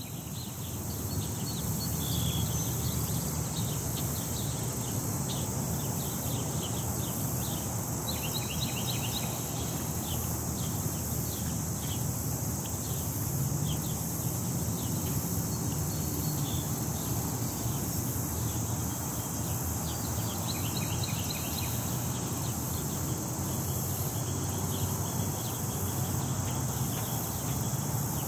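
Outdoor ambience: a steady high-pitched insect drone with scattered small bird chirps, over a low rumble of wind on the microphone.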